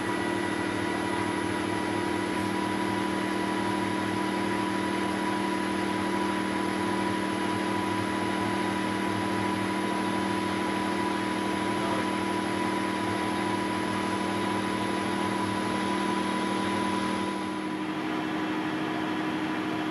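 1972 Weiler Matador SV lathe running at 800 rpm under power feed while a small boring bar takes a light finishing cut in a gear blank's bore. It makes a steady machine hum with a whine. A little past three quarters of the way through, a high tone fades out and it goes slightly quieter.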